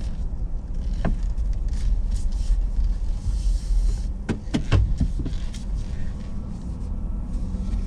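Inside a moving car's cabin: steady low engine and road rumble from slow driving on wet streets, with a few scattered sharp clicks and a brief hiss partway through.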